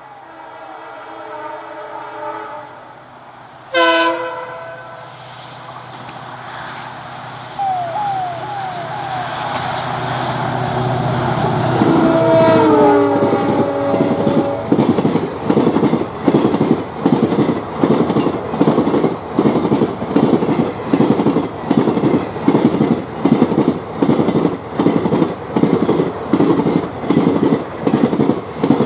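Diesel locomotive approaching with its horn sounding, a short loud horn blast about four seconds in and its engine growing louder. As it passes, about twelve seconds in, another horn blast drops in pitch. It is followed by a steady clatter of coach wheels over rail joints at about two beats a second.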